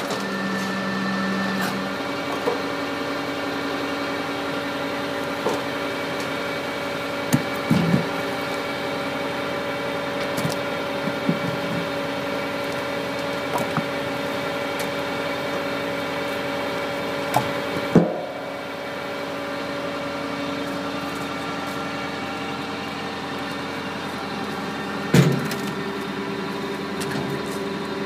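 Stanley Logger firewood processor running with the tractor that powers it, a steady engine-and-hydraulic hum, broken by scattered knocks and clunks of logs and split wood. A sharper knock comes about eighteen seconds in, when the hum changes slightly, and another near the end.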